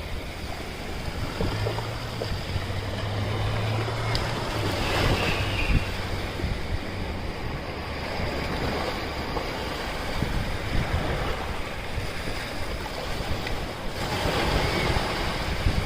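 Ocean surf washing steadily onto a beach, with wind rumbling on the microphone. A low steady hum sounds for a few seconds near the start.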